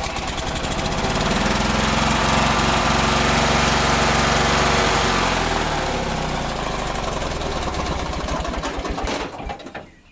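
Riding lawnmower engine running, speeding up over the first two seconds, then dropping back to a lower speed about halfway through, and shut off about a second before the end.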